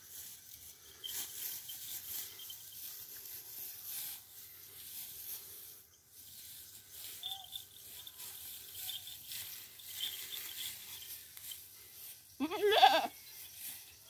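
Young goat bleating once near the end, a short wavering call under a second long.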